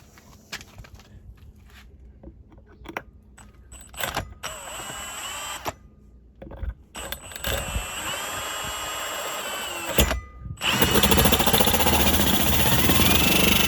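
Power drill with a large hole saw: two short runs with the motor whining up to speed, then from about eleven seconds in a louder, steady grinding as the hole saw cuts through the van's body panel.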